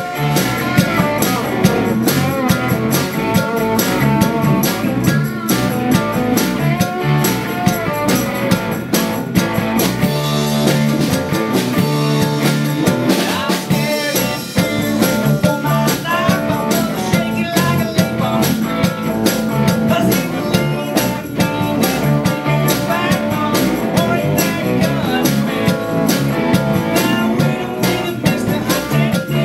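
Live band playing a song on acoustic and electric guitars, bass guitar and drum kit, with a man singing lead.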